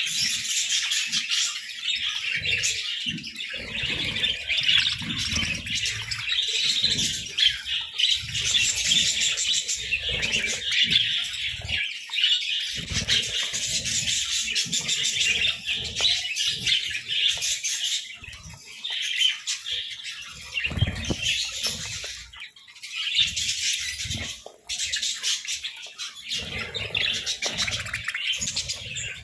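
Budgerigars chirping and chattering nonstop in a dense, high warbling jumble, with scattered soft knocks and clicks underneath.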